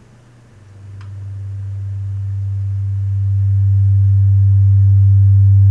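Low, steady electronic drone tone from a modular-synth and matrix-mixer rig, fading in about half a second in and swelling steadily louder, with a fainter higher tone joining about halfway through.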